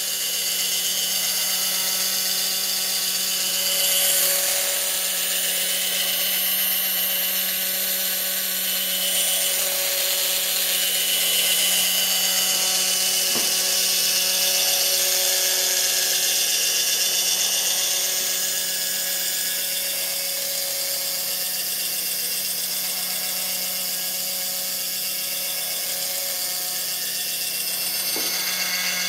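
Small geared electric motor running steadily with a whirring whine, turning the crank linkage that drives a pair of model oars.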